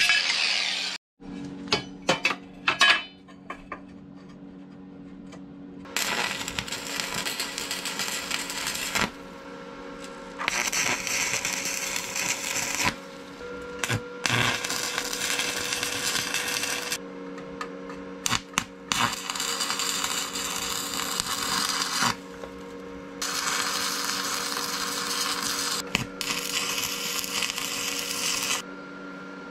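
Stick welding: the arc crackles and hisses in runs of two to three seconds, six times, with short pauses between beads. A steady low hum continues underneath, and a few sharp clicks come just before the first run.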